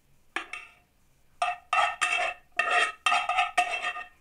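Metal utensil scraping fried carrot and onion out of a non-stick frying pan into another pan. A quick double tap comes first, then a run of about five scraping strokes, each making the pan ring with a clear tone.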